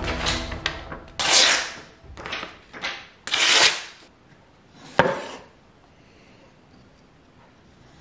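Freshly sharpened santoku knife slicing down through a sheet of paper: four papery swishes between about one and four seconds in, the edge cutting off a strip. A single sharp knock about five seconds in.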